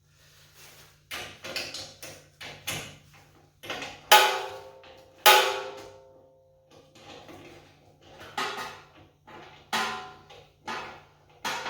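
Irregular metal clanks and clinks of a wrench and bolt against a generator's steel frame while a foot is bolted on. Two loud ringing clanks come about four and five seconds in.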